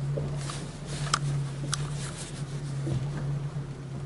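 Boat engine idling with a steady low hum, and two sharp clicks about a second and nearly two seconds in, over faint scraping of fishing gear.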